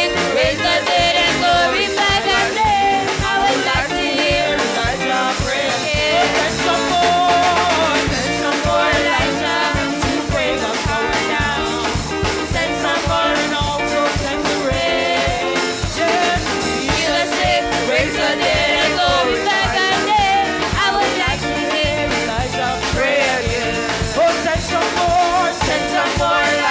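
Live praise-and-worship song: several women's voices singing together into microphones over a drum kit and band, played steadily throughout.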